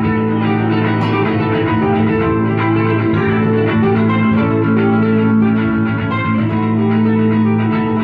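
Instrumental music from a trio of electric guitars playing live: plucked guitar lines over steady, held low notes.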